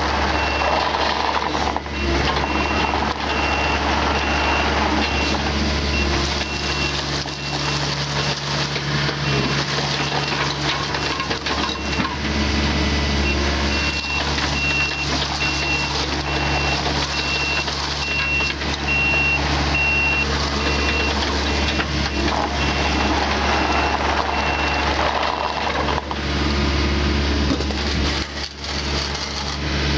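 Mini excavator's diesel engine running steadily, with its motion alarm beeping a single high tone about once a second; the beeping stops near the end.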